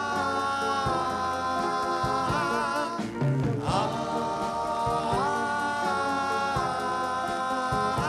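Doo-wop vocal group singing long, held wordless harmony chords that step to new chords every second or two, over a band with drum beats.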